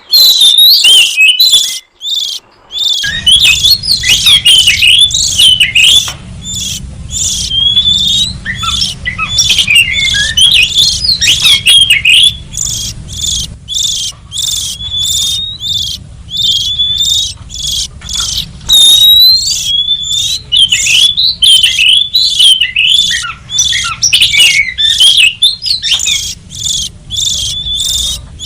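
Oriental magpie-robin (kacer) calling and singing in a loud, continuous run of rapid chirps and whistled glides, the lure call used to draw in wild kacer. A faint low hum sits underneath from about three seconds in.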